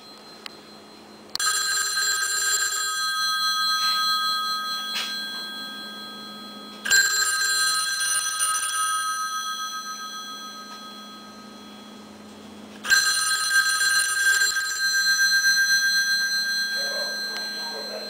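Rotary telephone's electromechanical ringer striking its twin brass bell gongs: three rings about six seconds apart, each a couple of seconds of clanging that then dies away in a ringing tone.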